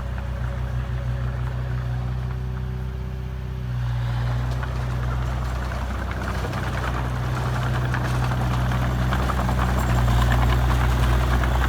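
Heavy diesel engine of earthmoving machinery running steadily. From about four seconds in, a rougher mechanical noise builds over it and the sound grows a little louder toward the end.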